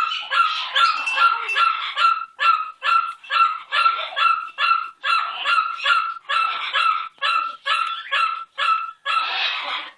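Pet parrot screaming over and over: harsh, loud calls about two a second, ending in one longer call near the end.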